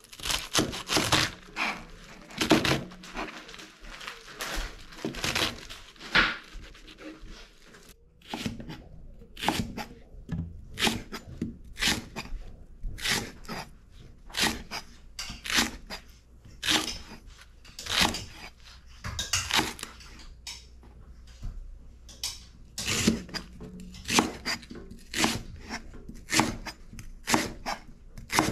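Kitchen knife cutting vegetables on a plastic cutting board: first slicing through napa cabbage, then, after a short break, slicing a Japanese long green onion (negi). Each stroke ends in a short knock of the blade on the board, coming about once a second or faster.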